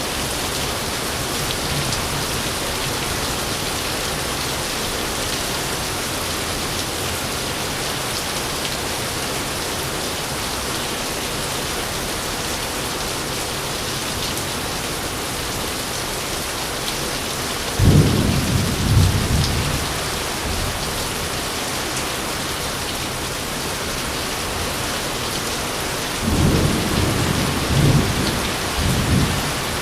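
Steady rain falling throughout, with thunder: a sudden clap about 18 seconds in that rumbles for about two seconds, and a longer rolling rumble near the end.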